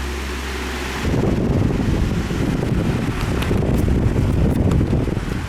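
A 1991 Windmere DF-16 16-inch oscillating table fan running with its plastic motor humming steadily. About a second in, the fan's airflow starts buffeting the microphone, a rough, louder low rumble, with a few faint ticks.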